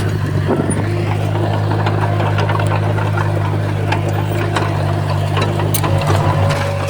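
Crawler bulldozer's diesel engine running steadily with a deep, even hum, with many short clicks and clanks scattered through it.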